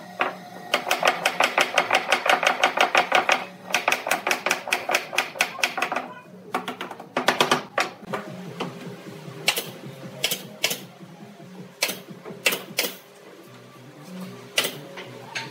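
A wooden mallet tapping quickly on pine segments to seat the joints of a round frame, in fast runs of knocks, then a pneumatic brad nailer firing single sharp shots into the joints from about the middle on.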